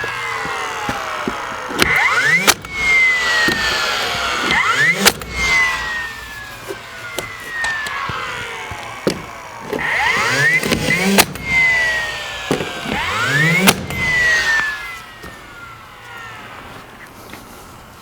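Newly hung wooden shed door swung back and forth on its hinges about four times. The hinges squeak in rising and falling glides, and a sharp knock comes as the door meets its stop. The door is swinging freely on the new hinges.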